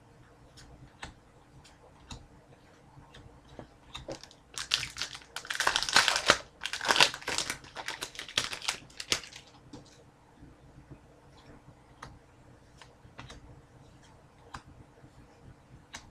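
A foil trading-card pack being torn open and its wrapper crinkled for about five seconds in the middle, with light clicks and taps of cardboard cards being handled before and after.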